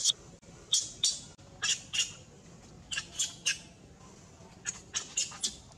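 Baby macaque crying in distress: a dozen or so short, high-pitched squeals, coming singly and in quick runs of two or three.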